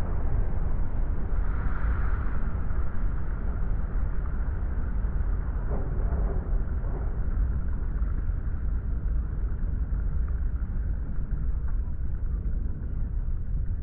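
Steady low rumble of high-rise towers collapsing in a controlled implosion, with no separate blasts standing out.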